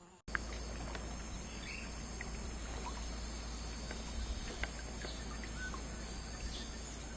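Rainforest insect chorus: a steady high-pitched buzzing drone from many insects, with scattered short bird chirps over it. It starts abruptly just after the beginning.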